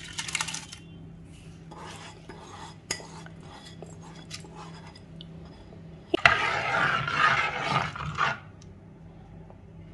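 Rice and dal sliding from a bowl into the liquid in an aluminium pressure cooker with a short splash at the start, then a metal spoon stirring and scraping around the cooker for about two seconds near the end, the loudest sound.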